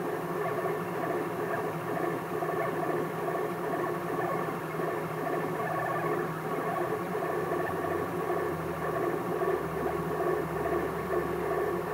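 3D printer running a print, its motors whirring steadily with several held tones over a noisy hiss. A low hum comes in about eight and a half seconds in.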